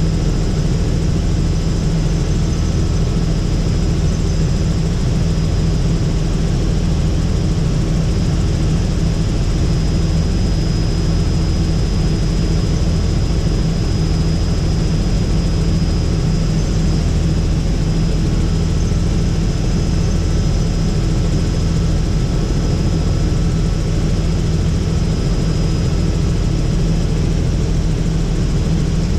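Robinson R66 turbine helicopter in flight, heard from on board: a steady, loud drone of engine and rotors with a thin high whine running through it.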